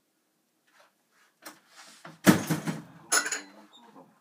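Dishes clattering as they are handled: a few light knocks, then louder clatters about two and three seconds in.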